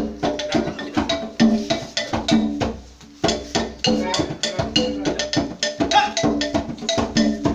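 Live traditional percussion music: a rapid, even run of pitched wooden or bamboo strikes, about four or five a second, with a bamboo flute playing over it.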